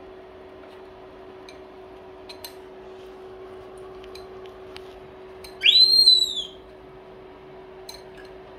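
A young macaque gives one loud high-pitched call, rising and then falling, lasting under a second, about six seconds in. Around it come light clicks of a metal spatula stirring in a ceramic bowl, over a steady low hum.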